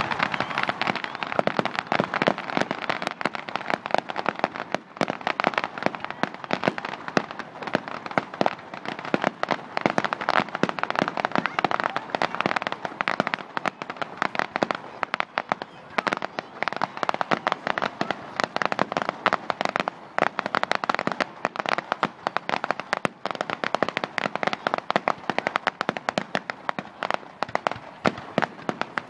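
Fireworks going off in a dense, continuous stream of rapid pops and bangs with no pause.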